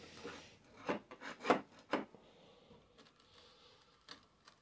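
A steel square being handled against the wooden jig fence on a table saw. There are a few sharp knocks and scrapes in the first two seconds, then a soft rubbing as it slides into place, and two light clicks near the end.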